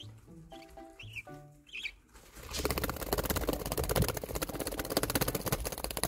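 A month-old budgerigar chick flapping its wings hard and fast in place, wing-strengthening practice before it can fly. The quick, even fluttering of wingbeats starts about two and a half seconds in, over soft background music.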